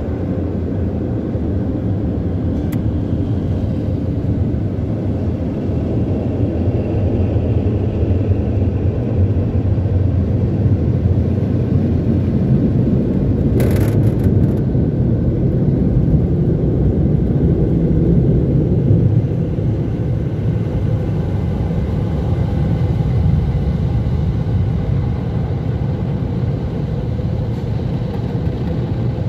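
Mark VII ChoiceWash XT rollover car wash machine running, heard from inside the car as a steady low rumble. There is a brief rustle about fourteen seconds in.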